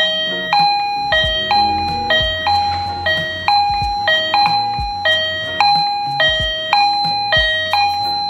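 Pingron PR-P03 infrared visitor chime playing its electronic doorbell melody: a repeating run of higher and lower chime notes, about two a second.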